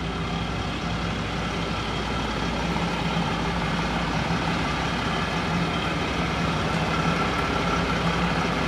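A 2021 Ram 3500 dually pickup's engine idling steadily, a low, even hum.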